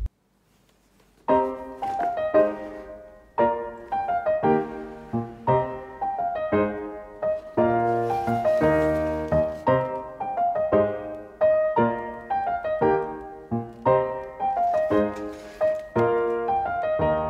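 Background music: a keyboard melody of struck, decaying notes, about two a second, starting after a second of silence.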